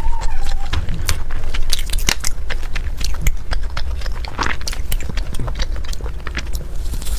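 Close-miked eating: food being bitten and chewed, with a quick run of crisp clicks and crunches over a steady low rumble.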